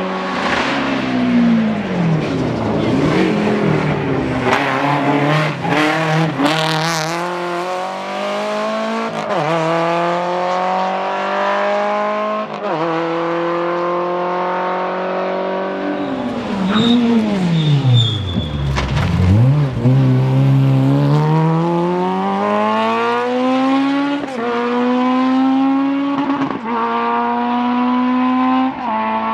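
Rally car engine at full throttle on a tarmac stage, its pitch climbing and dropping back at each gear change. Around the middle it falls to low revs, then climbs through the gears again.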